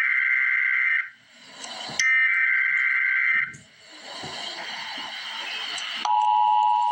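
Emergency Alert System SAME header bursts: two loud bursts of warbling digital data tones, each about one and a half seconds long with a gap between them, then a few seconds of hiss, then the steady two-tone EAS attention signal starting about six seconds in, ahead of the spoken alert.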